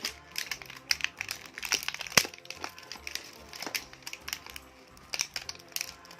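Plastic toy packaging being handled and crinkled, with irregular sharp clicks and crackles, over background music.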